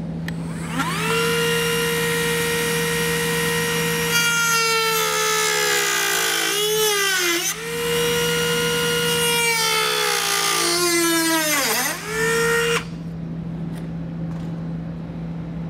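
Handheld rotary tool spinning at high speed as it trims the plastic lower section of a car's front bumper. Its whine starts about a second in and dips in pitch a few times as the bit bites into the plastic. It stops suddenly about thirteen seconds in.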